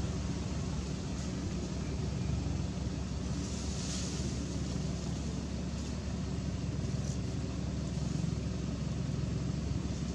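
A motor running steadily, a low rumble with a droning hum, with a brief soft hiss about four seconds in.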